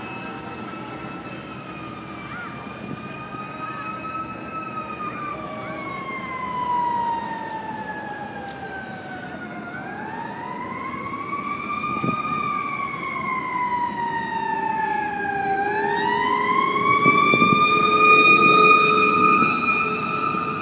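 A siren wailing slowly, its pitch sinking, climbing, sinking again, then climbing back up to hold high. It grows louder toward the end.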